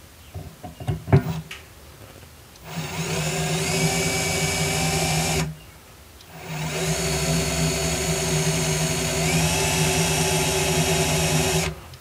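Cordless drill boring into a washing machine's steel agitator shaft. A few clicks as the bit is set, then the drill runs twice, about three seconds and then about five seconds, with a short pause between. Its whine rises as it spins up each time and steps up in pitch partway through the second run.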